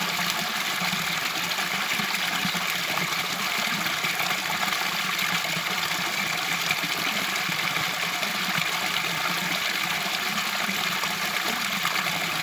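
Steady rush of flowing river water, an even hiss that holds at the same level throughout.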